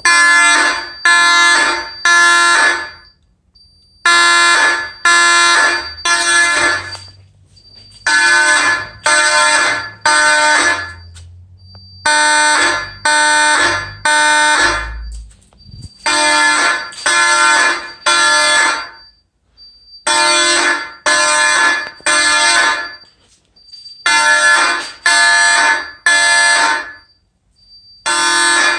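Federal Signal 450D Vibratone fire alarm horns sounding in code 3, the temporal-three pattern: three short blasts, a pause of about a second, repeating every four seconds. A faint high steady whine fills the gaps between groups.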